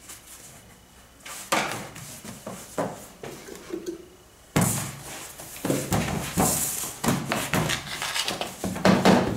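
Dough being divided and handled with a plastic bench scraper on a floured stainless steel work table: irregular knocks and thuds, turning louder and busier about halfway through.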